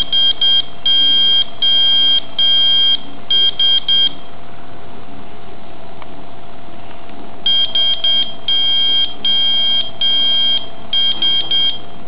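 An Arduino-driven buzzer beeping Morse code for SOS: three short beeps, three long, three short. The whole sequence plays twice, with a pause of about three seconds between the two.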